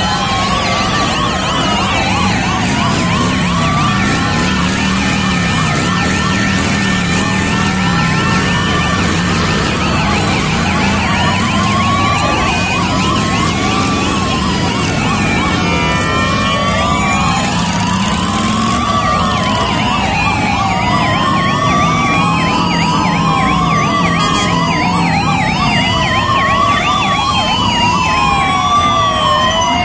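Several police motorcycle sirens wailing at once, each rising and falling every second or two and out of step with the others, over the motorcycles' engines running.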